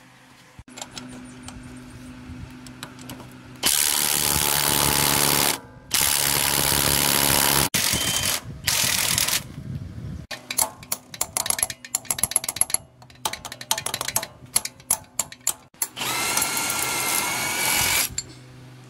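A handheld power tool, such as a drill, runs in four bursts of a couple of seconds each. Between the bursts comes a long run of rapid clicks and taps, and the last burst carries a faint rising whine.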